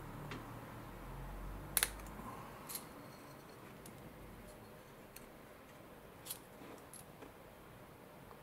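A handful of light, sharp clicks and taps from small hard objects being handled: a double click about two seconds in, then single clicks spread through the rest.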